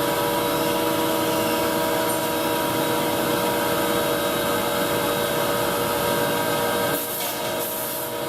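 Steady drone of woodworking shop machinery, with a constant whine over a noisy hum; it drops a little and changes about seven seconds in.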